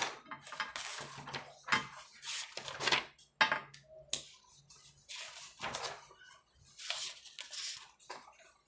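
Sheets of paper rustling and flapping as pages of a thick stack of documents are flipped over and handled, in a run of irregular swishes with short gaps. A faint low hum sits underneath for the first half.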